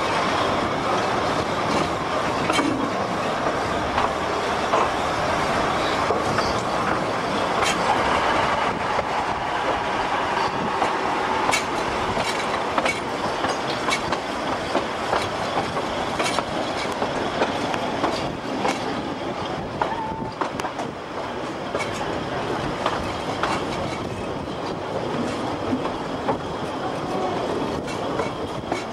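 2 ft narrow-gauge railway carriages rolling, wheels clicking steadily over rail joints and points with brief faint wheel squeal now and then.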